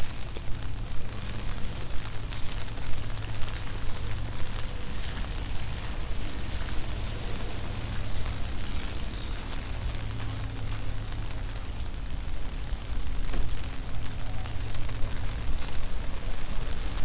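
Rainy city street: a steady wet hiss of rain and passing traffic on wet pavement, with a heavy low rumble underneath and scattered light crackles.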